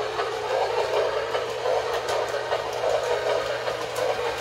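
New Bright Holiday Express toy train running forward around its plastic track: a steady electric-motor whir and wheel rumble, with light irregular clicks.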